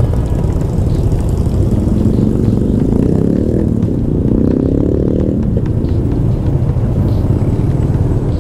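Motorcycle engine running in slow city traffic over a steady low rumble. Its note climbs under throttle from about two seconds in and drops back a little past the middle.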